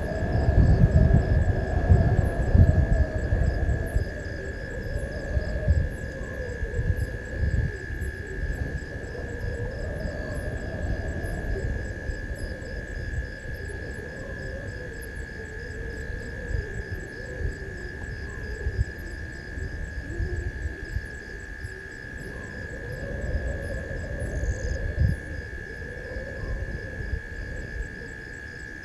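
Night-time bush ambience: insects and crickets chirring steadily, with a constant high whine and rows of fast, high repeated chirps, over low rumbling noise that is loudest in the first few seconds and then settles.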